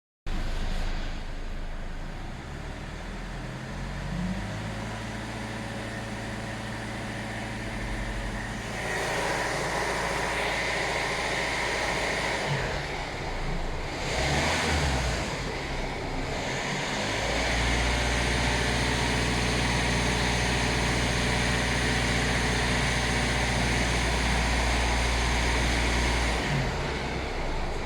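Hyundai i40 CRDi diesel engine running, with a hiss over the engine note that the owner suspects is a vacuum leak behind the car's power loss and high diesel consumption. The engine note steps up about four seconds in, the hiss joins from about nine seconds, and the engine is held steady at a higher speed for several seconds before dropping back near the end.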